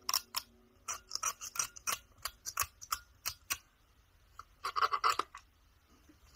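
Sony WM-EX900 cassette Walkman's small plastic and metal parts clicking and scraping as it is handled and worked on, with scattered sharp clicks and a quick run of clicks past the middle.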